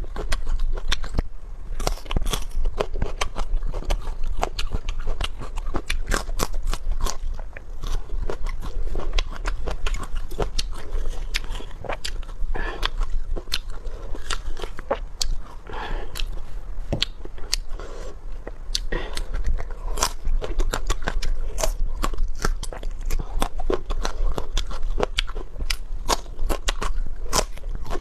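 Close-up eating sounds: crunchy bites and chewing, a dense run of sharp crackles and clicks throughout.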